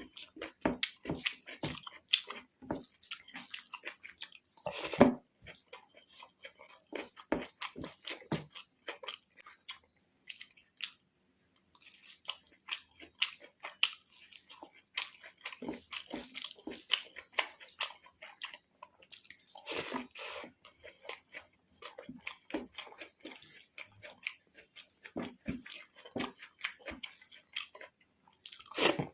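Close-miked eating sounds: a mouthful of rice and vegetable curry being chewed, with wet smacking and many small irregular clicks.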